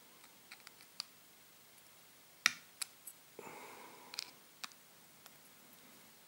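Small, faint metallic clicks and taps from a brass connector insert being handled with pliers and a small screwdriver. The sharpest click is about two and a half seconds in, and there is a brief soft rustle a little after three seconds.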